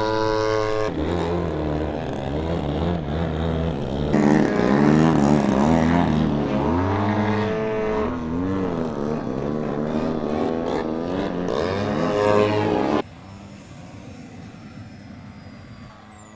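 Model airplane engine in flight, its pitch rising and falling as it passes and turns. It cuts off abruptly about thirteen seconds in, leaving a faint high whine that drops in pitch near the end.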